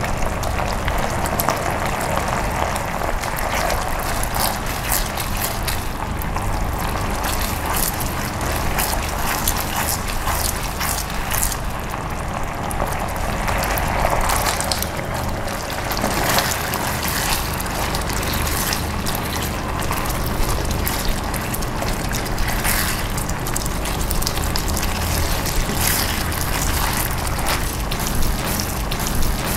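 Thick cornflour-thickened sauce bubbling and popping at a hard boil in a pan. About halfway through, pieces of scrambled egg are tipped in, and it is stirred with a spatula near the end.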